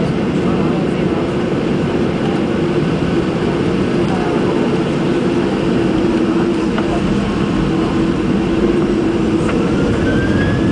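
Boeing 737-800's jet engines at takeoff power, heard inside the cabin over the wing as the airliner accelerates down the runway: a loud, steady engine noise with a steady low hum, and a faint rising whine near the end.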